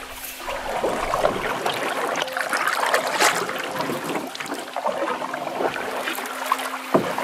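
Canoe paddles pulling through lake water in repeated splashing strokes, about one a second, with water washing along the hull. There is a single sharp knock near the end.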